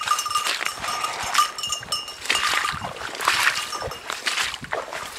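Small bell on a hunting dog's collar tinkling in short, irregular runs as the dog works through cover, over dry brush and twigs rustling and snapping. The rustle is thickest a little past the middle.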